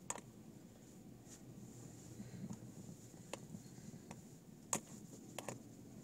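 Quiet room tone inside a car: a low steady hum and a faint high whine, with a few faint, irregular sharp clicks. The loudest click comes a little under five seconds in.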